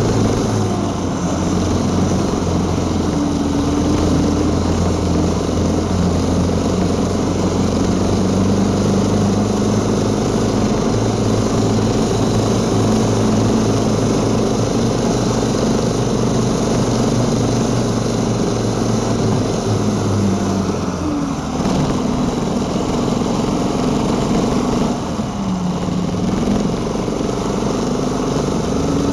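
Small engine of a homemade single-ski snow scooter running steadily under way. About two-thirds through, the pitch drops as the throttle eases off, then climbs back, with another short dip a few seconds later.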